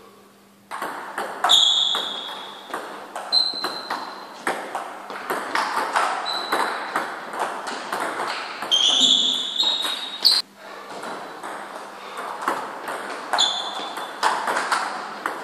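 Table tennis ball clicking off bats and the table in rallies, a string of quick sharp knocks. Several brief high-pitched squeaks are heard among them.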